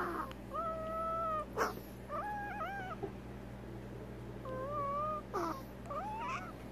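Prairie dog making a string of short, high whistling wheezes, one every second or two, with a couple of brief rustles. It is an abnormal sound that marks a flare-up of her odontoma.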